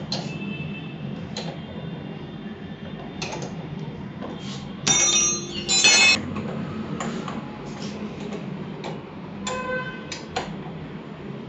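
Metal tools and small parts clinking and ticking during motorcycle front-suspension reassembly, with two loud ringing metallic clinks about five and six seconds in and another near ten seconds, over a steady low hum.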